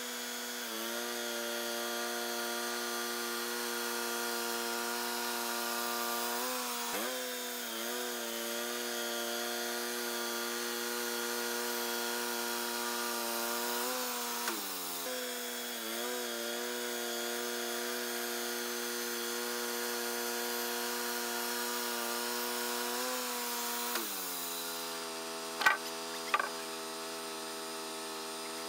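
Wood-Mizer LT35 portable band sawmill running as it saws a log, its engine holding a steady pitch with brief dips a couple of times. Most of the way through, the engine settles to a lower steady pitch, followed by two sharp knocks.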